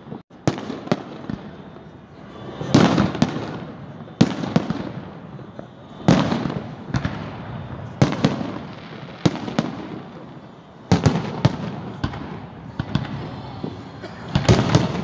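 Aerial firework shells bursting in a show: about a dozen sharp bangs a second or two apart, some in quick pairs, each trailing off in an echoing rumble.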